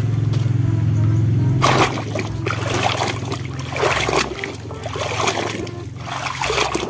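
Hands splashing and sloshing toy vehicles through a basin of muddy water, in irregular splashes from about two seconds in. A steady low hum fills the first couple of seconds.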